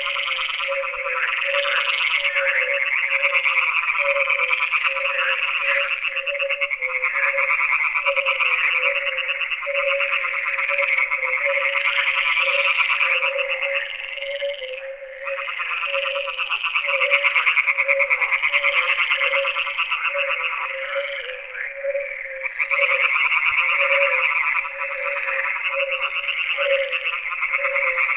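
A chorus of many frogs calling at once: a dense, rapid trilling over a lower call repeated in steady pulses. The chorus swells and eases in waves, thinning briefly about halfway through and again later.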